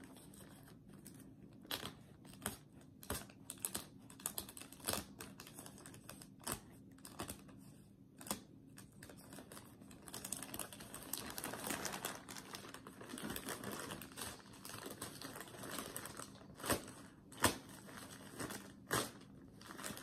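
Plastic poly mailer bag being pulled and torn open by hand: scattered sharp crackles and clicks of the plastic, with a longer spell of continuous crinkling about halfway through.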